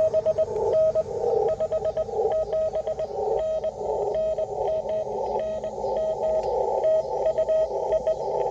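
Morse code on an amateur radio transceiver: a single steady mid-pitched tone keyed on and off in dits and dahs, over the hiss of the receiver's narrow CW filter.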